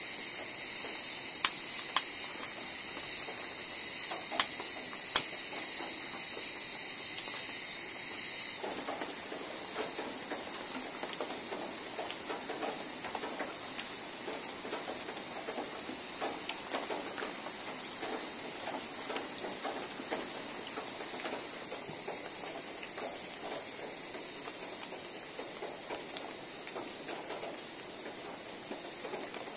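Steady high-pitched hiss with four sharp clicks in the first few seconds, then a quieter, irregular crackling of a small campfire of twigs and dry leaves burning.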